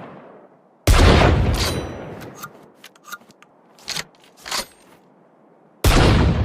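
Double-barrelled rifle sound effect: a loud gunshot with a long echoing tail, then a series of metallic clicks and clacks of the action being worked and reloaded, then a second loud gunshot near the end.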